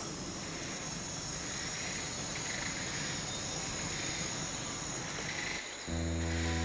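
Chorus of crickets and other insects: a dense, steady, shrill buzz with several high held tones. Near the end it cuts off and music with held notes begins.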